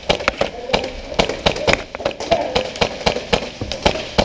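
Airsoft guns firing: irregular sharp pops, about three or four a second.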